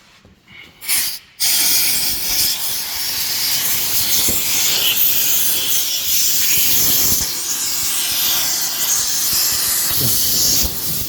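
Compressed-air blow gun hissing, with air forced in between a rubber motorcycle handlebar grip and the bar so the grip slides on. A short blast about a second in, then a steady hiss that runs until just before the end.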